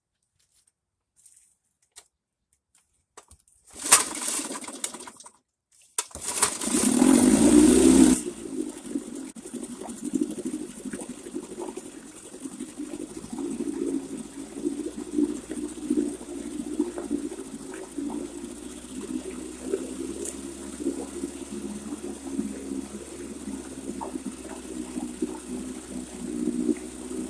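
Vintage Johnson 3 hp two-cylinder two-stroke outboard being pull-started: a first brief burst about four seconds in, then it catches about six seconds in, runs loudly for about two seconds and settles to a steady, slightly uneven running note.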